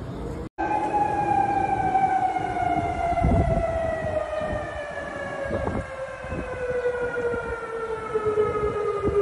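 Outdoor tornado warning siren sounding one long tone that slides slowly down in pitch, starting abruptly about half a second in, over a low rumble of background noise. It is the warning to take shelter from a tornado.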